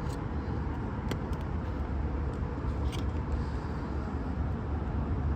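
A steady low background rumble, with a few small sharp clicks, about one second in and again about three seconds in, from tools working at the battery inside an opened iPhone 15.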